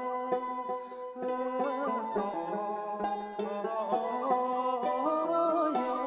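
A man singing a Bhutanese song into a stage microphone over a band with plucked-string accompaniment.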